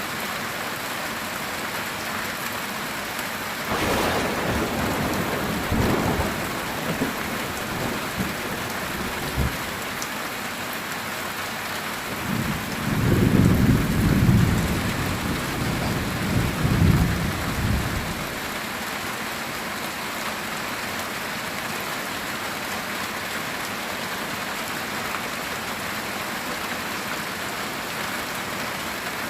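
Steady heavy rain drumming on a metal tin roof, with thunder: a sharp crack about four seconds in that rumbles for a few seconds, then a louder low rolling rumble from about twelve to eighteen seconds in.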